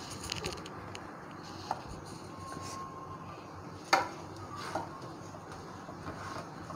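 A spatula working a flatbread on a flat griddle: light scrapes and clicks, with one sharp clack about four seconds in, over a steady low hiss.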